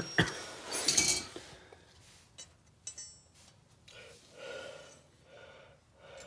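Metal hand tools and parts clinking and clattering, loudest in the first second or so, then a few faint clicks.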